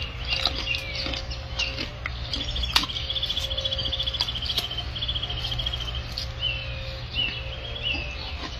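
Small birds chirping: a fast, even trill of chirps from about two seconds in, then several short falling chirps near the end. Underneath runs a steady low hum, with scattered clicks and smacks from a gorilla chewing fruit.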